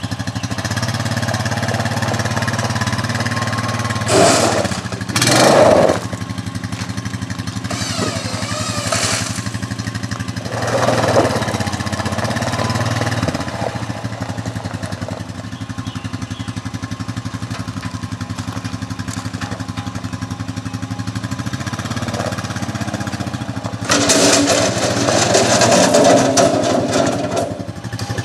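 Honda Rancher 420 ATV's single-cylinder engine running steadily as the quad drives over gravel, swelling louder a few times. Near the end a longer loud rush of noise comes as the front dump bucket is pushed into a gravel pile.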